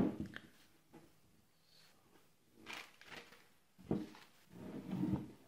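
Mirrorless camera bodies handled on a wooden tabletop. One is set down with a sharp knock at the start. Near the end a second knock is followed by scraping as another body is moved across the wood, with a brief rustle in between.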